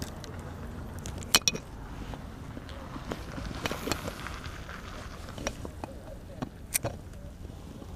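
Handling noise from a spinning rod and reel: a few sharp clicks and knocks, the loudest about a second and a half in and again near the end, over a steady low background rumble.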